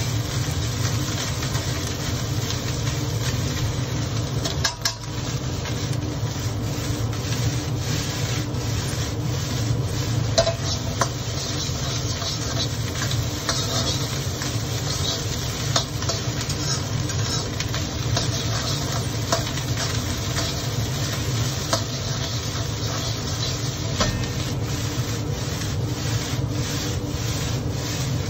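Egg fried rice sizzling in a wok over a gas burner while a metal spatula scrapes and clicks against the wok as the rice is stirred, with a steady low rumble underneath. The clicks come thicker near the end.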